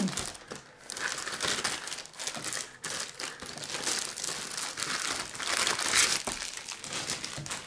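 Thin plastic bag crinkling and rustling irregularly as a router is pulled out of it and unwrapped by hand, loudest about six seconds in.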